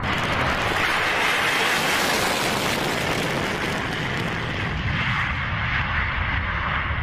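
F-15 fighter jet's twin engines in full afterburner on the takeoff roll: a loud, steady rushing jet noise. The highest part of the noise fades after about five seconds as the jet pulls away.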